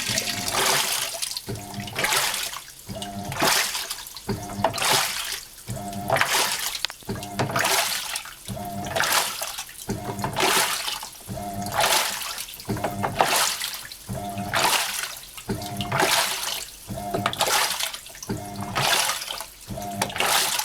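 Hitachi NW-42EF top-loading washing machine in its wash cycle: the pulsator swings back and forth, churning the water in a regular swish about every second and a half, each stroke with a short whine from the motor.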